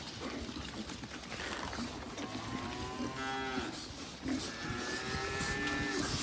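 Cattle mooing: two long calls, the first a little after two seconds in and the second starting about four and a half seconds in.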